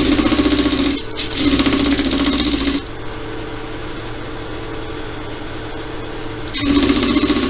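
A small wooden ring pressed against a disc spinning on a wood lathe, giving a loud rapid rattling rasp in bursts as it is sanded. It stops twice, once briefly after about a second and then for about four seconds. While it is off, the lathe runs on its own with a steady thin whine. The rasping starts again near the end.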